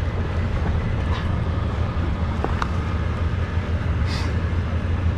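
Steady low rumble of a small boat drifting offshore, with a few faint short chirps and a brief hiss about four seconds in.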